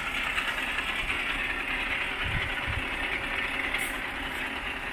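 Heavy truck's diesel engine idling steadily, with a constant hiss over the engine hum.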